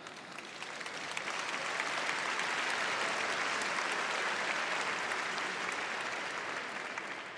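Banquet audience applauding, building up over the first couple of seconds and fading away near the end.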